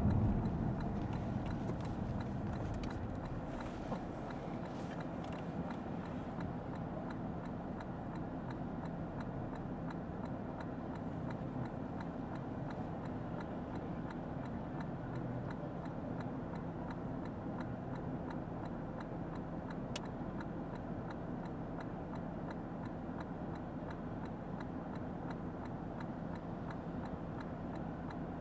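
Inside the cabin of a Lexus ES 350 F Sport: a low road and engine hum that eases down over the first several seconds and then holds steady, with a steady, evenly spaced ticking of the turn-signal indicator.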